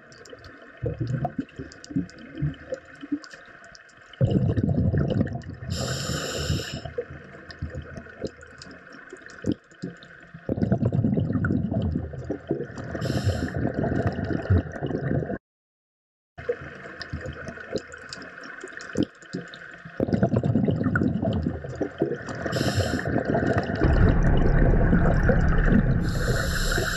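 Underwater recording of a diver's breathing: long stretches of rushing, gurgling exhaled bubbles alternate with short hissing inhalations every several seconds.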